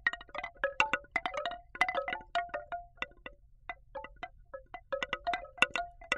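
Hand-toned bamboo wind chime (Asli Arts African Trio) stirring in the breeze: its hollow bamboo tubes knock together in a quick, irregular run of mellow wooden clonks, each with a short pitched ring. The strikes thin out in the middle and bunch up again near the end.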